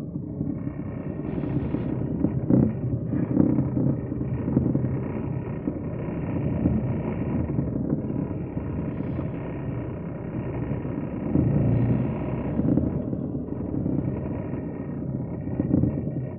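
Truck's diesel engine running with a steady low rumble while the lorry drives slowly.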